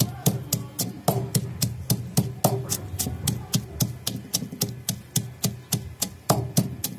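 A wooden pestle pounding chopped onions in a clay mortar: a steady run of dull, wet thuds, several a second, as the onions are crushed coarsely.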